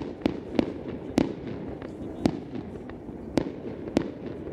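Fireworks exploding overhead: sharp bangs at irregular intervals, about seven of them, over a steady background rumble.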